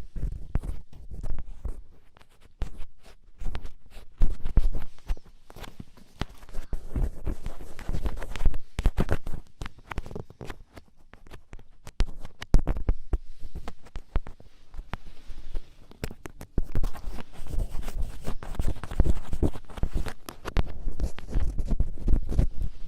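Ear pick scraping and scratching in an ear, heard very close up: irregular clusters of strong, scratchy strokes with dull low rubbing rumbles under them.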